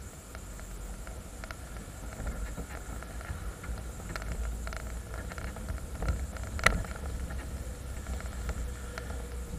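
Off-road vehicle driving over a rutted grass track, heard from a camera mounted beside its mud-terrain tyre: a steady low rumble with scattered clicks and knocks, one sharp knock about two-thirds of the way through.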